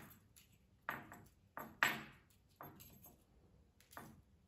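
Irregular sharp metallic clicks and clinks, about six in four seconds, as a tag of stainless steel trace wire is wound by hand around a screwdriver shaft.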